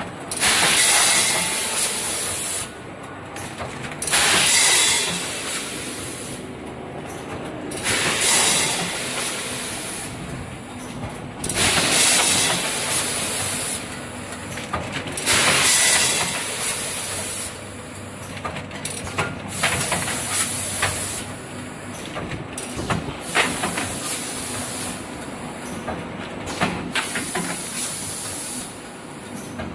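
Automatic premade-pouch filling and packing machine running, with loud bursts of pneumatic air hiss about every four seconds. Clicks and clatter from the mechanism run between them, busier in the second half.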